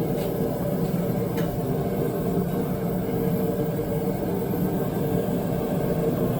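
Forge running with a steady roar, with two faint clicks near the start.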